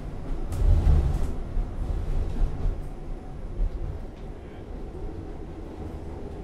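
Low rumble of a passing tram, loudest about a second in, then easing off.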